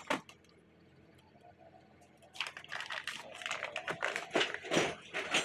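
Plastic packaging crinkling and rustling in the hands, in a dense run of crackles starting about two seconds in, after a single sharp click at the start.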